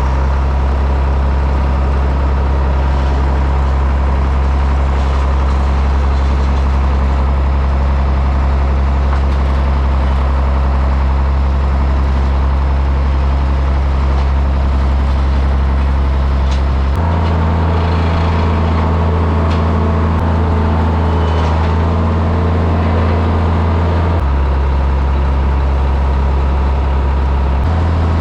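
Tractor engine running steadily. Its note steps up about two-thirds of the way through, drops back several seconds later, and rises again near the end.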